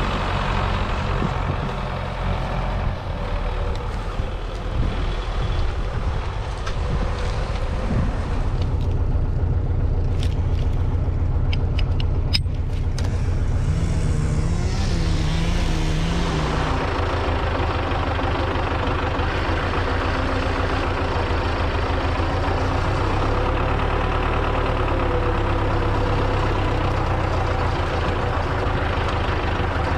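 MTZ-82 tractor's four-cylinder diesel engine running steadily, its note shifting about halfway through. A few sharp clicks come about ten to twelve seconds in, and a brief wavering whine follows around fifteen seconds in.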